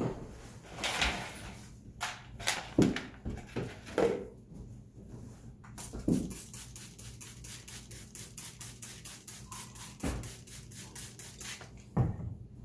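Plastic trigger spray bottle pumped rapidly, a quick even run of short hissing sprays, about five a second for some six seconds in the second half. Before it come a few knocks of things being handled and set down on a table.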